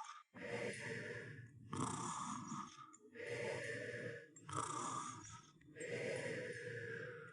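Snoring sound effect: a rasping, rattly snore repeated in even breaths, about one every 1.2 seconds.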